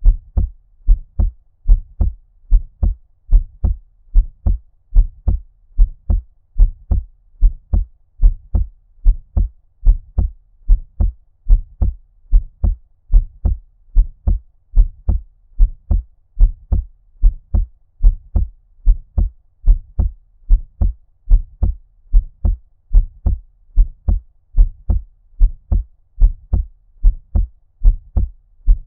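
Heartbeat at a normal, steady rate, a little more than one beat a second, each beat a low thump. It sounds muffled, as if heard underwater or through cupped ears.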